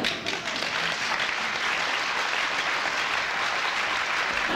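Audience applause: many people clapping together in a dense, steady patter that fades away just after the end.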